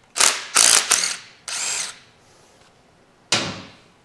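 Cordless power driver backing out the rocker-shaft bolts on a 1956 Chevrolet 235 straight-six head, in four short runs within the first two seconds. A single sharp knock comes near the end.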